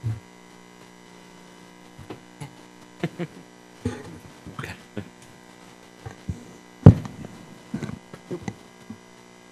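Steady electrical mains hum under the room sound, with scattered knocks and shuffling as people sit back down and settle in their seats. One loud thump comes about seven seconds in.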